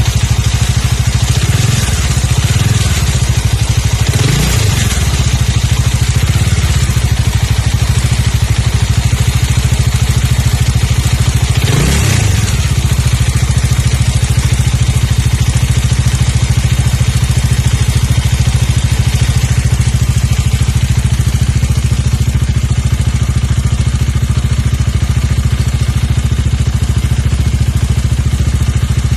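Bajaj Dominar 400's single-cylinder engine idling, with several short throttle blips in the first few seconds and one about twelve seconds in, then a steady idle. The owner reports a rattle like a cam chain or valves, as if the engine were out of tune.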